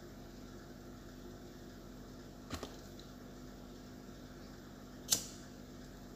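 A few sharp clicks: a short double click about midway and a louder single click near the end. These are a lighter being struck to burn the enamel insulation off the ends of the fan motor's copper winding wire. A faint steady hum lies under them.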